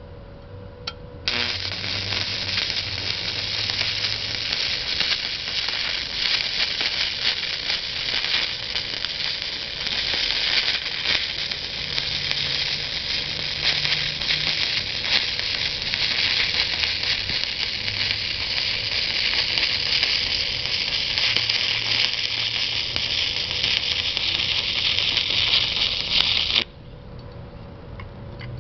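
Stick-welding arc from a Harbor Freight 80-amp DC inverter welder run electrode-positive on 1/8-inch stainless steel: a steady, dense crackling sizzle. The arc is struck about a second in, burns for about 25 seconds as a bead is run along the butt joint, and cuts off suddenly near the end.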